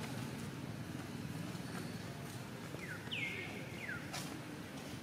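Short high-pitched animal calls, three in the second half, each sliding quickly down in pitch and one levelling off briefly, over a low steady rustle. A sharp click comes near the end.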